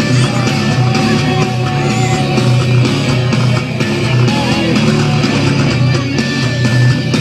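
Loud heavy metal music with electric guitars, an instrumental stretch with no singing.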